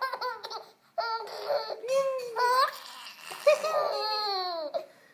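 Happy infant babbling and squealing in short high-pitched calls, ending in a long call that slides down in pitch about three and a half seconds in.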